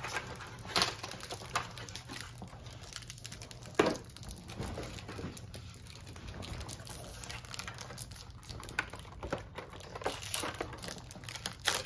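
Crinkling of Pokémon booster pack wrappers and handling of a clear plastic card box: scattered rustles and light clicks, the sharpest about four seconds in.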